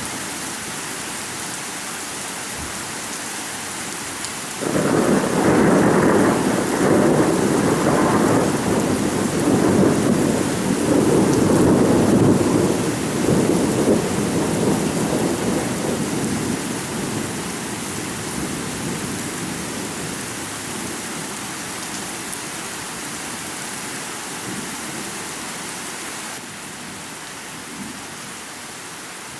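Thunderstorm: steady rain hiss with a long roll of thunder that breaks in about five seconds in, rumbles loudly for ten seconds or so, then slowly fades back under the rain.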